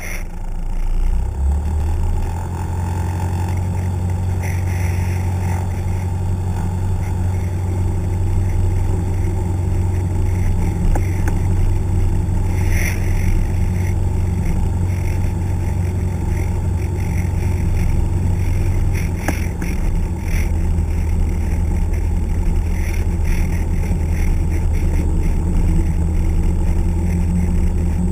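Piston engine and propeller of a single-engine light plane, heard from inside the cockpit, running steadily at low power while the plane moves on the ground. The drone picks up about a second in and then holds even.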